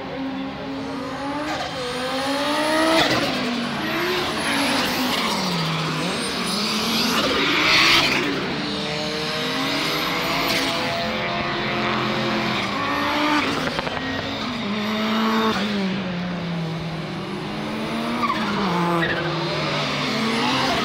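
Several race cars running on a circuit, their engines revving up and falling back through the gears as they pass one after another, with tyres squealing at times.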